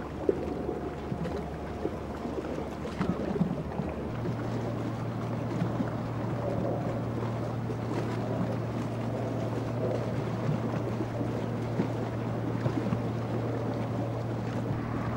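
Boat engine running steadily at low revs, a low drone that shifts to a slightly higher pitch about four seconds in, with wind buffeting the microphone.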